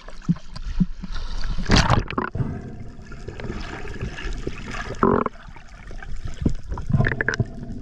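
Water sloshing and splashing around a freediver at the surface, with a loud splash about two seconds in as he duck-dives, then the gurgle of water and bubbles underwater as he descends.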